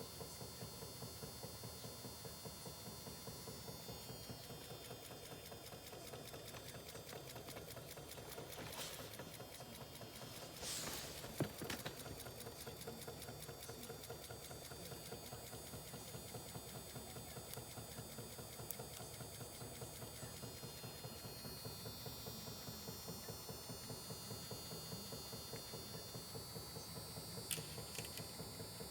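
Small battery-powered DIY generator machine running with a faint, steady, rapid mechanical rhythm. A brief scraping knock comes a little before the middle, and a sharp click comes near the end.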